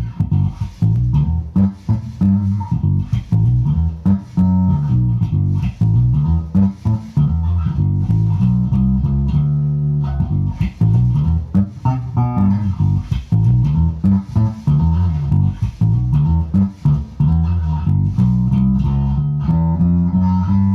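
Harley Benton MM 85-A SB Deluxe five-string active electric bass, played as a continuous line of plucked notes with its pickup selector on position 1 (coils 1 and 2 in parallel). The line ends on a held note.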